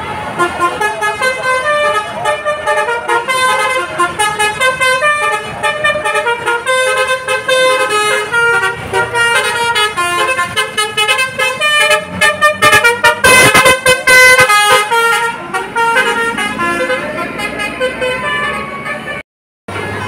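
Bus telolet horn, a multi-tone set of air trumpets, playing a fast melody of short notes that step up and down in pitch. It has a louder burst about two-thirds of the way through and cuts out briefly just before the end.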